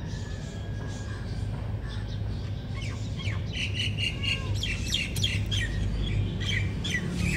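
Birds chirping and chattering in quick short calls that grow busier from about three seconds in, over a steady low hum.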